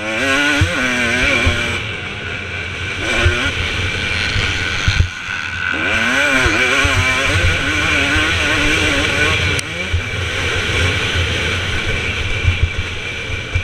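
2017 KTM 250 SX two-stroke motocross bike's engine running hard, its pitch rising and falling again and again as the throttle opens and closes through the gears, with wind noise on the microphone.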